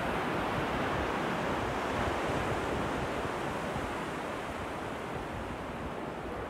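Ocean surf breaking offshore in a steady, continuous rush, with wind rumbling on the microphone underneath.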